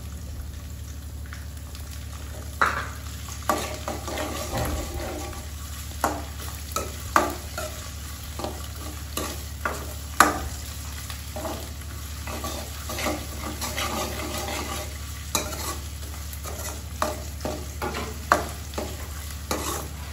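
Metal ladle stirring sliced onions frying in a metal kadai, with irregular clinks and scrapes against the pan over a light sizzle.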